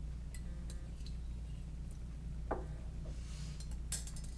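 A spoon stirring in a mug, giving a few light clinks, with a sharper tap near the end, over a steady low electrical hum.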